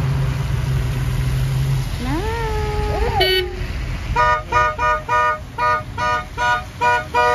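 Cars passing slowly on a wet road with engine and tyre noise, then a car horn honking in a quick row of short, even beeps, about three a second, through the last three seconds.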